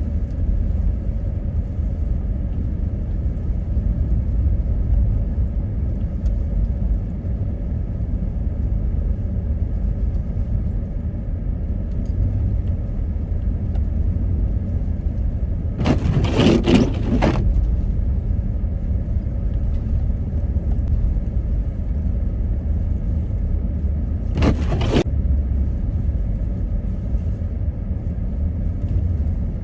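Steady low road rumble of a car driving through snow, with two short louder noises, one a little past halfway and another about eight seconds later.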